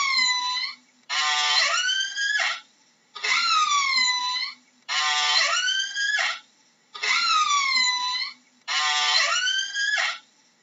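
Killer whale (orca) calls repeating about every two seconds, six in a row. Each call is a whistle-like tone that dips and then sweeps back up, and every other call opens with a buzzy, pulsed part.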